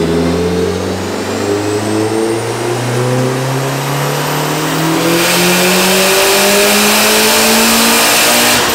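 VW MK4 1.8T 20-valve turbocharged four-cylinder, fitted with a big Garrett GTX3076 turbo, making a full-throttle third-gear pull on a chassis dyno. The engine note climbs steadily through the revs with a thin high whistle rising alongside it. A loud rushing hiss joins about five seconds in and stops near the end as the revs begin to drop away.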